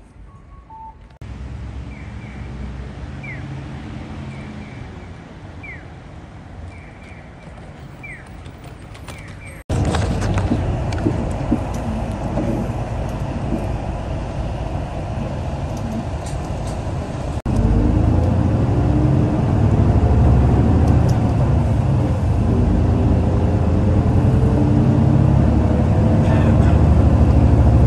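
Bus engine and road noise heard from inside a moving route bus: a steady low rumble. It jumps louder at cuts about ten and seventeen seconds in, and is loudest in the last stretch.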